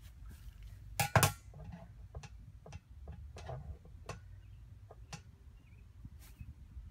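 Handling clicks and knocks as a digital probe thermometer is set down inside a doghouse. A louder double knock comes about a second in, then scattered light ticks and clicks, over a low steady rumble.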